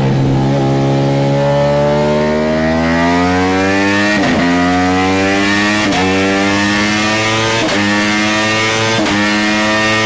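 Ducati Panigale V4's V4 engine through an Arrow exhaust, under load on a rolling-road dyno. The revs climb steadily for about four seconds, then come four quick upshifts about one and a half to two seconds apart, each a brief break before the revs climb again.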